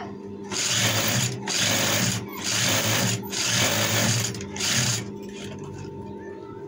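Industrial lockstitch sewing machine stitching in several short runs, each under a second, stopping and starting as the fabric is guided. The runs end about five seconds in, and a steady hum carries on.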